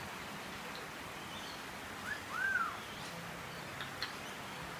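Male Eclectus parrot giving one short whistle that rises and falls in pitch, about two seconds in, over a steady hiss of rain.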